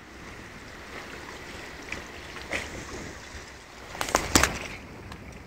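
Wind noise and choppy water lapping at the moored boats, a steady rushing hiss, with a quick cluster of sharp knocks about four seconds in.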